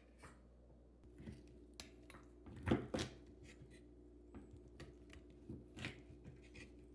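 A knife cutting cooked baby back pork ribs apart, with scattered short knocks and clicks. The loudest pair of knocks comes about three seconds in.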